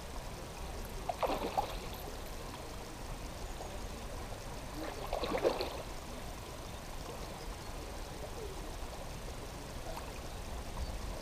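A hooked salmon trout splashing at the pond's surface while being played on the line, twice: briefly about a second in, then louder about five seconds in, over a steady low rumble.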